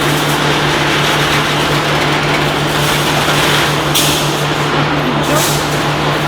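Automatic steel wire mesh welding machine running: a steady electrical hum under continuous machine noise, with short bursts of high-pitched noise about four seconds in and again about five seconds in.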